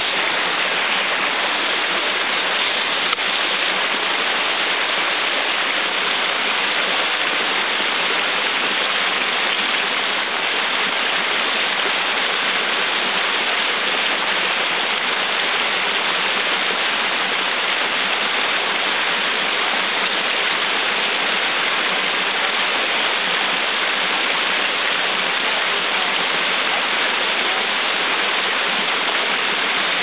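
Brook pouring over a rock ledge in a small cascade: a steady, loud rush of water.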